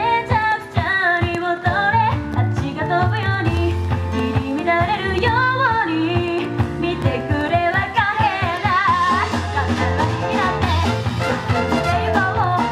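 A young woman singing a pop song live into a microphone, backed by a band with a steady bass line.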